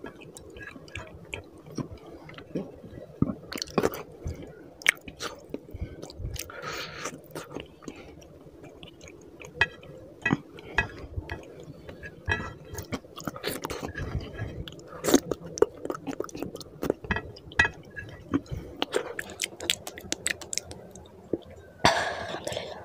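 Close-miked eating by hand: a person chewing rice and spicy rohu fish curry with wet mouth clicks and smacks, while fingers squish and scrape the curry-soaked rice across the plate.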